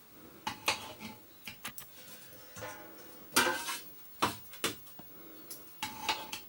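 Metal pots and utensils clinking and knocking against each other, a series of sharp knocks, some with a brief metallic ring, the loudest about three and a half seconds in.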